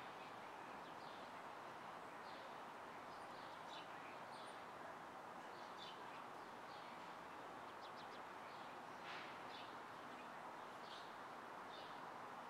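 Faint city ambience: a steady hum of distant street traffic, with birds chirping in short bursts throughout.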